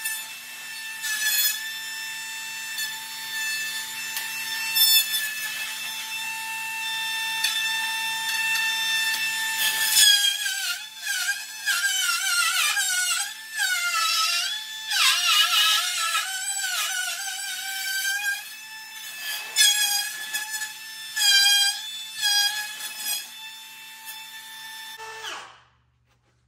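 Cordless Milwaukee router running with a steady whine while its bit cuts a circle through plywood on a pivot jig. The pitch dips and wavers under the cutting load through the middle, and the router stops abruptly near the end.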